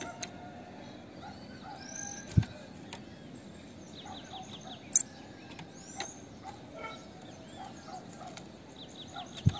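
Female bananaquit calling: thin, high chips and short rapid trills. A few sharp clicks cut in, the loudest a low thump about two and a half seconds in and a high click about five seconds in.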